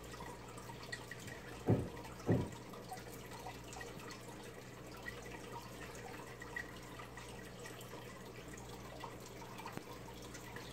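Aquarium water trickling and dripping over a steady low hum, with faint ticks throughout. Two dull thumps come close together about two seconds in.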